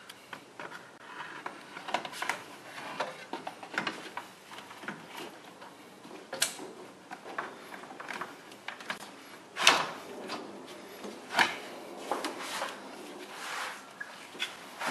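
Plastic radiator fan shroud being lowered and worked into place against the radiator, with scattered plastic knocks, scrapes and clicks and a few sharper knocks, the loudest nearly ten seconds in.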